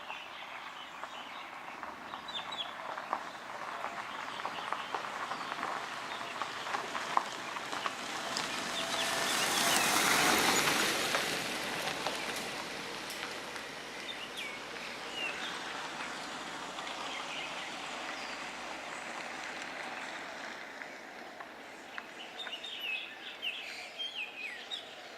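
A chorus of birds chirping and calling, many short chirps overlapping. Around the middle a broad rush of noise swells up and fades away again over several seconds.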